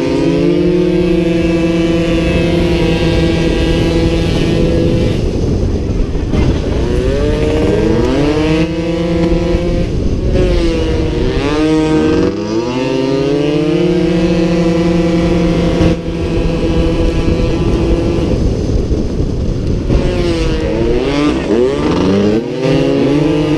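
Small two-stroke 50cc racing scooter engines screaming at high revs, more than one at once. The pitch holds steady on the straights, then drops and climbs again several times as the bikes slow for corners and accelerate out.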